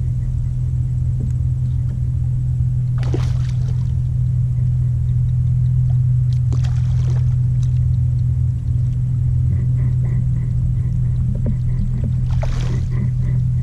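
A steady low drone runs throughout, with a few short splashes of a hooked redfish thrashing at the surface beside a kayak, about three seconds in, around six to seven seconds, and near the end as it is netted.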